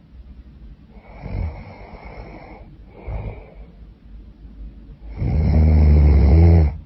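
A woman snoring in her sleep: a softer in-breath about a second in, a short one just after three seconds, then a long, loud, low snore from about five seconds in that stops abruptly near the end.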